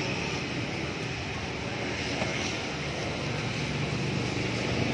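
Steady hum of street traffic.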